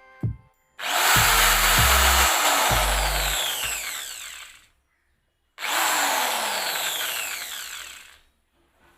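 Black+Decker electric drill run twice in short bursts, each time whirring loudly and then dropping in pitch as the motor winds down to a stop.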